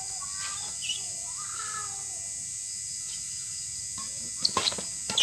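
Badminton racket striking a shuttlecock: a few sharp taps close together near the end, as a rally gets under way. Before that, a steady hiss with faint chirp-like calls or distant voices.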